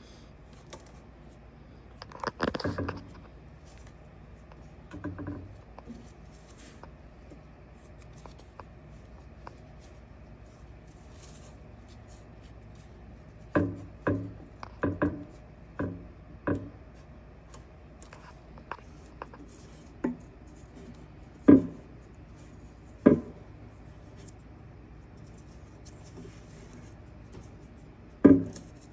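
Scattered sharp knocks and clanks of hand tools and parts being handled during mechanical repair work. A quick run of them comes about halfway through, and a few louder single knocks follow, separated by quiet stretches.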